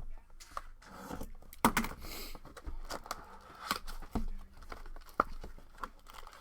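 A trading-card blaster box and its wrapping being torn open and handled: tearing, crinkling and scraping, with a run of small knocks and clicks and a brief tearing rip about two seconds in.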